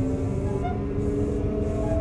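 Sotetsu 9000 series electric train's Hitachi IGBT VVVF inverter and traction motors whining, heard from inside the car. Several steady tones slowly shift in pitch over the rumble of wheels on rail.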